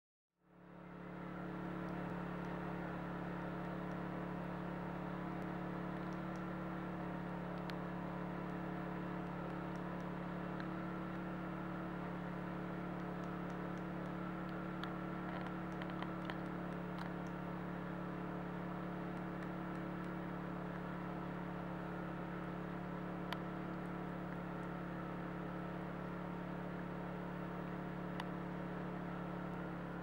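A steady mechanical hum made of several fixed tones, like an idling engine or a running machine, fading in over the first second or two and then holding level. A few faint, very short high ticks or chirps come through it now and then.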